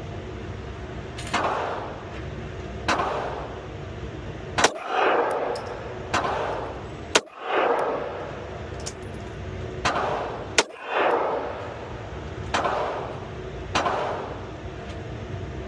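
9mm Glock pistol fired one shot at a time, about ten shots spaced a second or two apart, each crack followed by an echoing tail.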